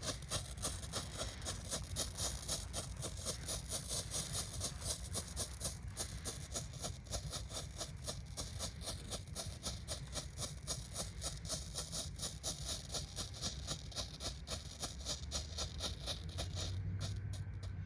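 Red Jumbo Strobe novelty firework by Grand Patriot burning: a rapid, uneven run of sharp pops, one with each flash of the strobe composition. The pops stop about 17 seconds in as the strobe burns out.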